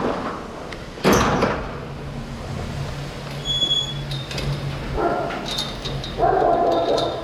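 Dogs barking in kennels, several loud barks in the second half. A sharp knock comes about a second in, and a low steady hum runs under the middle.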